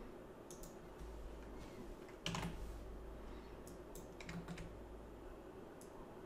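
A handful of faint, sparse computer mouse and keyboard clicks as software is operated, the loudest about two seconds in.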